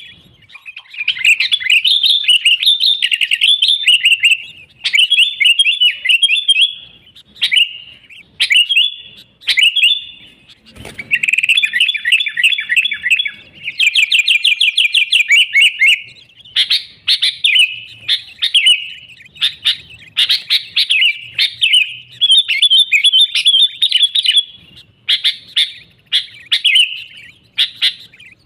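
Sooty-headed bulbul singing almost without pause: loud, bubbly chattering phrases broken by short gaps, with fast even trills around the middle.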